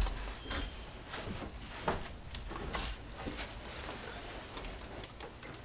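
Faint rustling and a few soft, scattered knocks as fiberglass insulation batts are pushed up and tucked between ceiling rafters by hand.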